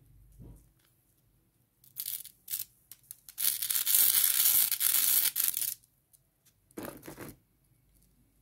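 Glittery foil wrappers being torn open and peeled off chocolate eggs by hand. A few short crinkles are followed by a loud tearing rip of about two seconds in the middle, then one more short crinkle.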